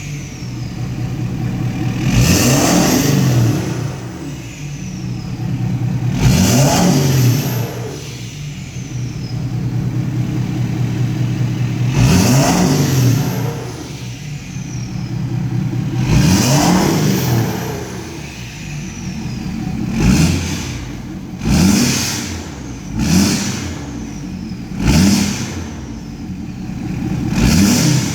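Ford 6.7L Power Stroke V8 turbodiesel free-revving: four long revs, then five quick blips. After each rev the turbo whistles, falling in pitch as it spools down.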